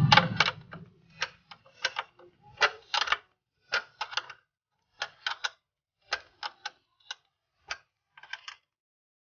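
Ring spanner clicking in quick clusters of two to four, about once a second, as it is worked on the nut of a metal battery hold-down clamp to tighten it. A louder, duller clatter of handling comes right at the start.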